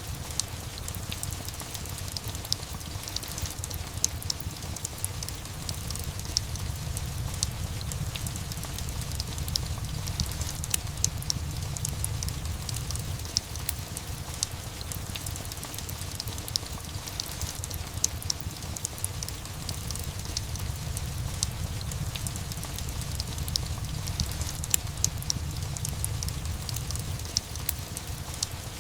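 Steady rain mixed with a crackling wood fire: frequent sharp pops and crackles over a constant hiss and a low rumble.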